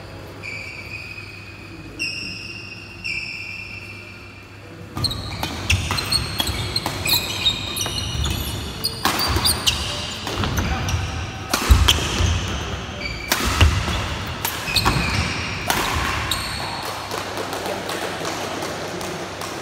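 Badminton doubles rally on a wooden indoor court: a few shoe squeaks at first, then from about five seconds in a quick run of racket strikes on the shuttlecock, shoe squeaks and footfalls, with the two hardest hits near the middle. It settles down again near the end as the point finishes.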